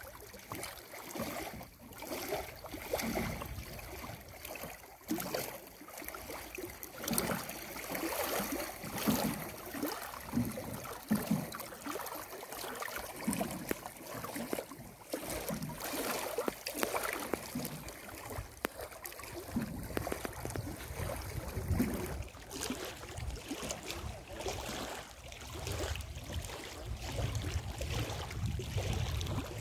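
Small wind-driven waves lapping and splashing irregularly against the rocky shore of a reservoir. A low rumble, typical of wind on the microphone, builds in the last several seconds.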